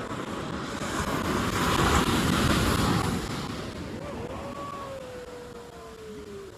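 Sea wave breaking and washing up the beach: a rush of surf that swells over about two seconds, peaks, then fades away.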